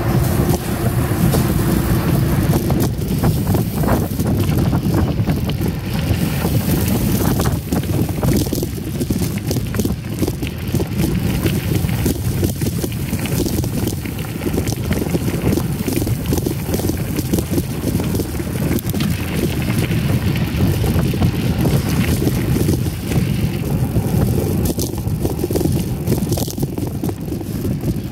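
Mountain bike being ridden over a dirt and gravel trail: a steady rumble of tyres and wind buffeting the microphone, broken by frequent short knocks and rattles as the bike goes over bumps.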